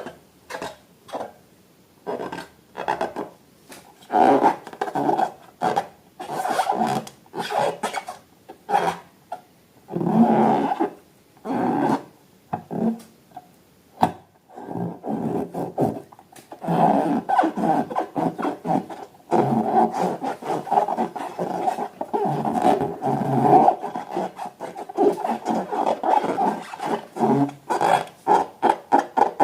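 Balloons and slime being handled: repeated rubbing in short, irregular strokes, with longer runs of steady rubbing in the second half.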